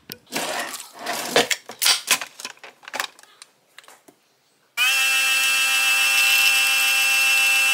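A few clicks and knocks of handling at the coffee machine, then about five seconds in a Nespresso Vertuo coffee machine starts brewing: a loud, steady, high-pitched hum as it spins the capsule and pours coffee into the cup.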